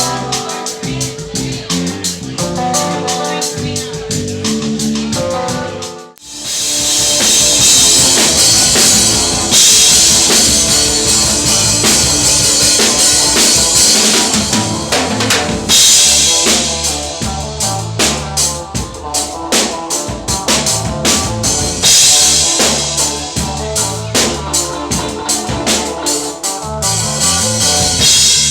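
A band playing music with a full drum kit. For the first six seconds the pitched instruments carry a melodic line. After a short break about six seconds in, the full band comes in, with loud drums and washing cymbals keeping a steady beat.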